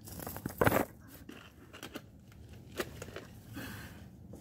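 Handling noises: a brief loud scrape a little over half a second in, then a few faint clicks and rustles.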